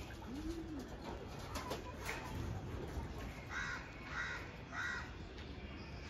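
Domestic pigeons cooing, with one low rising-and-falling coo about half a second in. Near the middle a different bird gives three short, higher calls about half a second apart.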